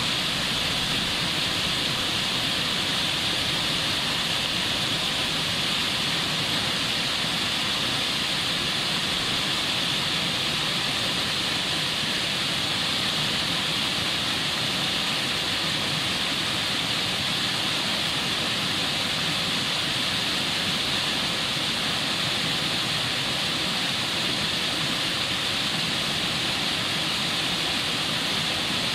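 Fast stream rushing and splashing over boulders in white-water rapids, a steady, unbroken rush of water.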